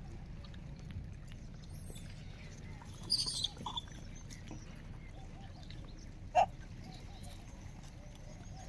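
Outdoor animal sounds over a low rumble: faint bird chirping, a short high squeak about three seconds in, and a louder, sharp short call about six seconds in.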